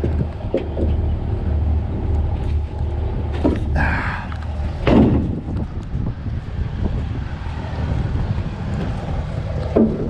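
A vehicle engine running steadily at idle, with a few short knocks and scrapes over it.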